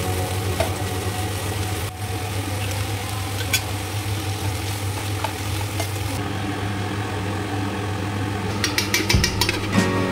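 Leafy greens sizzling in a nonstick pan while being stirred and turned with a wooden spatula, over a steady low hum. A quick run of clicks and clatter comes near the end.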